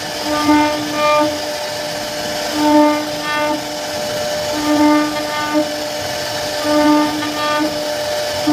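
CNC wood router's spindle whining at a steady high pitch as the bit carves a relief pattern into a wooden panel. The whine swells louder about every two seconds, over a steady hiss of cutting.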